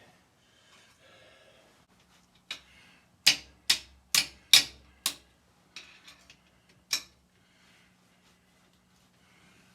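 Sharp taps on a Caterpillar Sixty tractor piston and its rings during ring fitting and installation. A first tap about two and a half seconds in, then five strong ones about two a second, a few lighter clicks and one last tap near seven seconds.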